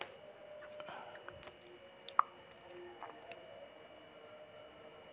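Faint insect chirping: a high, evenly pulsing trill several times a second, with short gaps. A few soft clicks are mixed in, the sharpest a little over two seconds in.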